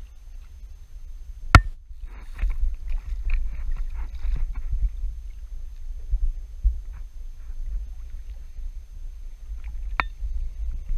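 Steady low rumble of water moving around a boat at sea, with scattered knocks and two sharp clicks, the first about a second and a half in and the second near the end.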